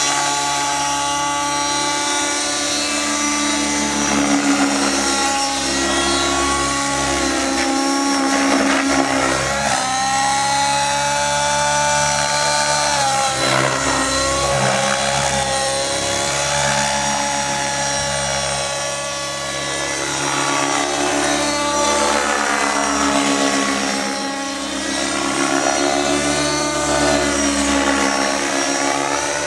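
Align T-Rex 700 Nitro radio-controlled helicopter's glow engine and rotor running hard through aerobatics, the engine pitch sweeping up and down with the manoeuvres and sagging briefly a few times.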